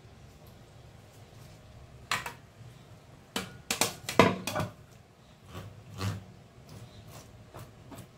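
Metal utensil scraping raw fish flesh off the bones on a stainless steel tray. Short scrapes and clinks against the tray come about two seconds in, a quick cluster around the middle, and one more near six seconds.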